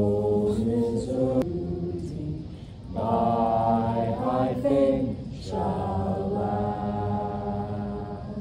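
A small group of voices singing together in slow, long held notes, in three phrases with short pauses between them.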